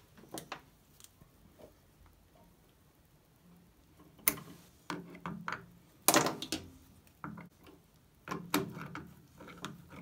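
Irregular clicks, scrapes and knocks from a washing machine drum being worked by hand, with a stray wire caught behind the drum making the noise. They are sparse at first and come thicker and louder from about four seconds in.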